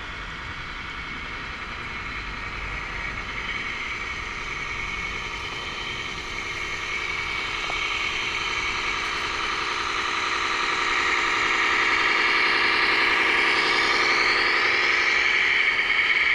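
Steady motor whine from a radio-controlled model construction machine, with several pitches at once, slowly growing louder and shifting in pitch near the end.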